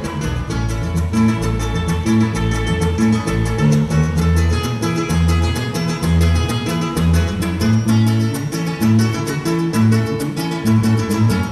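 Live band playing instrumental Latin dance music: a steady bass line, guitar and quick, even percussion.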